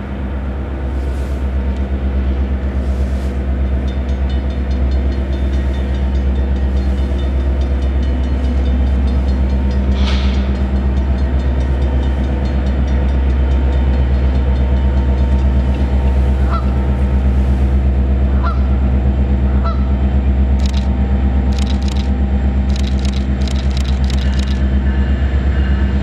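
Two CN diesel freight locomotives running steadily as they approach hauling a loaded ore train, a deep continuous engine drone. About two-thirds of the way through come three short honks, and near the end a run of sharp clicks.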